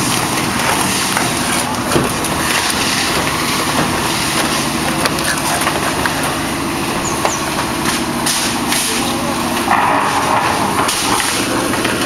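An engine running steadily, with voices mixed in.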